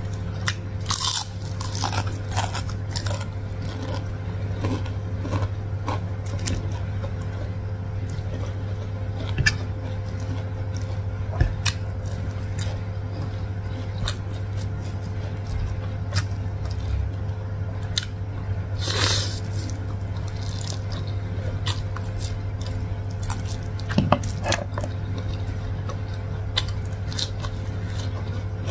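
Close-miked chewing and biting of chicken wontons and instant noodles: irregular wet mouth clicks and crunches, with one longer, louder noisy sound about two-thirds of the way through. A steady low hum sits underneath.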